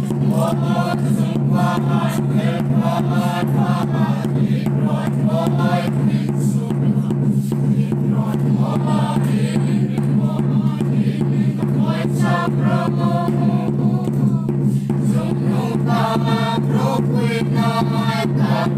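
A small group singing a hymn together from songbooks, with a barrel drum beaten in a steady rhythm under the voices and a steady low hum beneath.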